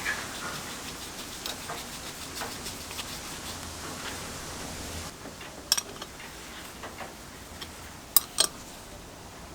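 A few light, sharp metallic clicks and clinks over a low hiss, the loudest pair near the end.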